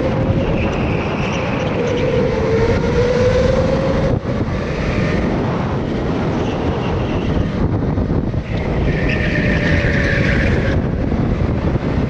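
Go-kart running at speed, heard from on board: a continuous low rumble with the motor's pitch gliding up and down as the kart goes through the corners.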